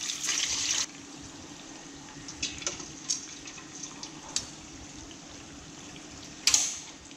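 Water poured from a jug onto ice in a steel bowl for just under a second, then small splashes as boiled pork belly is dropped into the ice water. A louder splash comes near the end, as another piece goes in.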